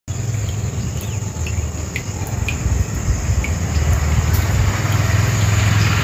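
Outdoor field ambience: a steady insect hiss over a constant low rumble, with a few faint short chirps.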